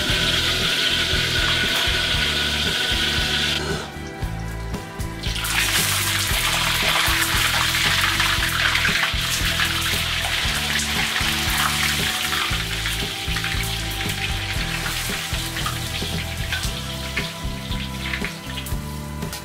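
Battered food deep-frying in a wok of hot oil, a dense crackling sizzle that starts about five seconds in and runs on, over background music with a steady bass line. Before it, a steady hiss stops suddenly about four seconds in.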